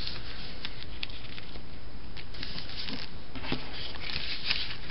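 Paper and cardstock being handled on a craft mat: faint scattered rustles and light taps as the card is pressed down and pieces are picked up, over a steady background hiss.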